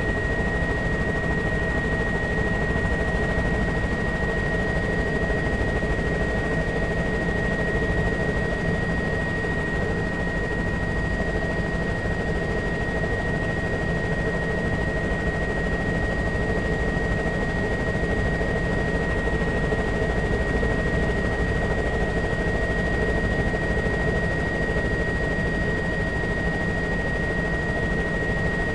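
Helicopter cabin noise: steady rotor and engine noise in flight, with a constant high whine running through it.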